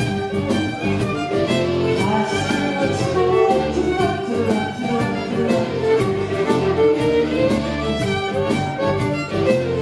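Live contra dance band music: a fiddle carrying the tune over a steady, driving dance beat.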